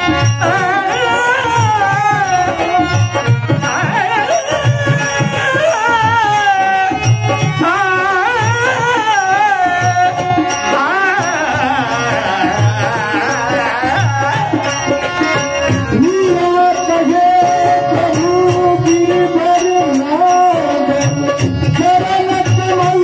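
Devotional bhajan music: a melody that bends and wavers in pitch over a steady hand-drum beat, with small cymbals ticking in time.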